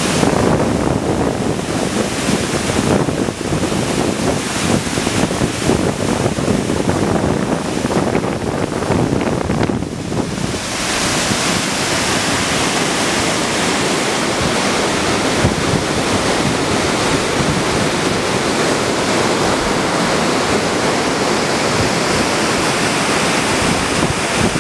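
Steady rush of a waterfall in flood, heavy with muddy water. About ten seconds in, it changes to the brighter, more even rush of a flooded river in spate.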